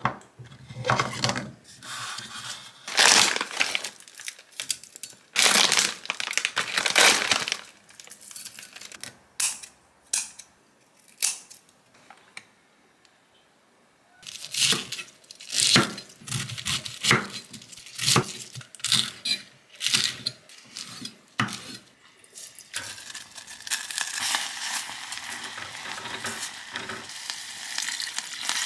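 Kitchen handling sounds: silicone utensils knocking in a utensil holder, then sharp clicks and crinkles of a plastic food tray being handled. About 23 seconds in, water starts to pour steadily from a glass measuring cup into a pot.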